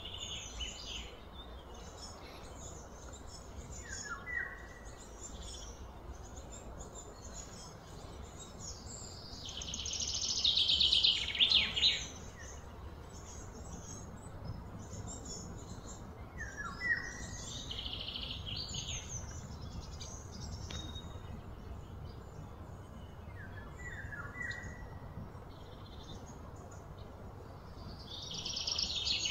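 Birds calling: scattered short chirps, and two louder rising trills that build for about two seconds each, one around a third of the way in and one at the end, over a steady low background rumble.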